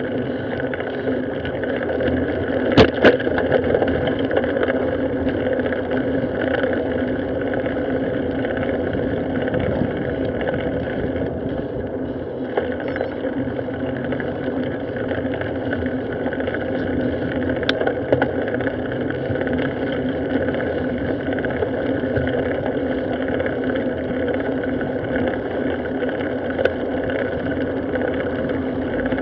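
Steady rumble of tyres on pavement and wind buffeting a bicycle-mounted action camera while riding. There is a sharp knock about three seconds in, from the bike jolting over a bump, and two fainter knocks later.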